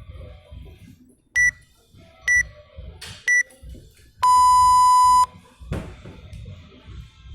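Workout interval timer counting down: three short high beeps about a second apart, then one long lower beep lasting about a second that marks the start of the next EMOM minute. A thump follows shortly after.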